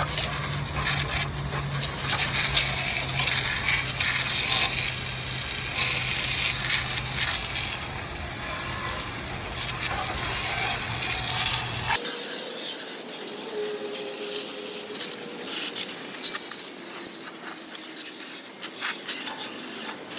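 Pressure washer spraying a jet of water onto a truck frame to blast off degreaser: a loud, even hiss over the machine's steady hum. About twelve seconds in, the hum cuts off and a quieter spray noise goes on.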